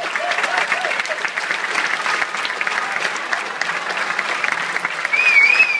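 Audience applauding steadily in a hall, and near the end a high, wavering whistle rises above the clapping.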